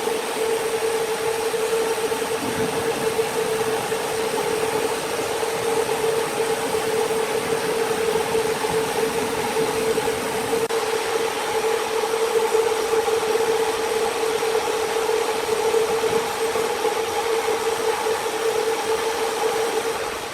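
Sawmill machinery running steadily, a constant mid-pitched hum over even mechanical noise.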